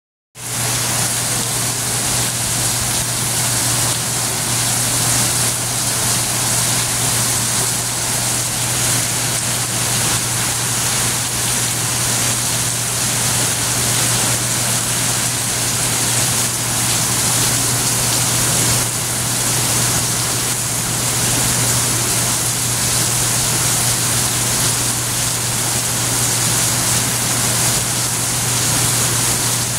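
Heavy rain pouring down steadily, a dense even hiss with no thunderclaps, over a steady low hum.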